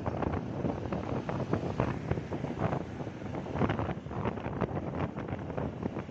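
Wind buffeting the microphone of a riding motorcycle, a rough uneven rush over the low rumble of road and engine noise.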